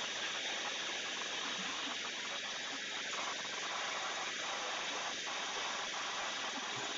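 A steady, even hiss with no clear engine beat.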